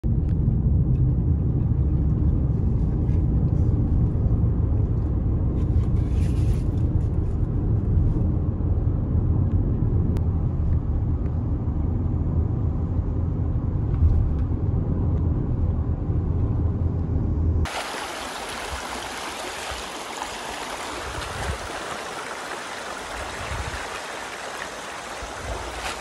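Steady low road-and-engine rumble inside a moving car. About two-thirds of the way through it cuts suddenly to the steady rush of a mountain stream.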